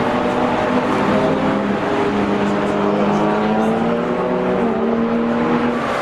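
Engines of several cars driving past in a line, their overlapping notes steady and shifting slowly in pitch as they go by.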